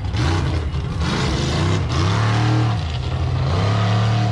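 Freestyle mud truck's engine revving, its pitch climbing and dropping several times.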